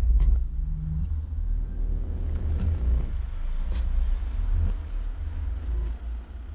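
Low, steady rumble of a car engine as the car rolls slowly, with a few faint clicks scattered through.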